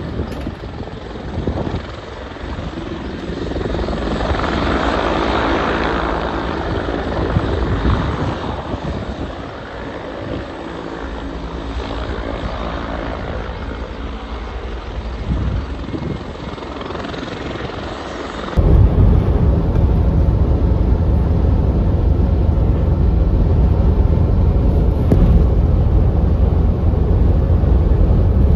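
A car on the move: engine hum and road noise. About two-thirds of the way in the sound turns abruptly louder and deeper.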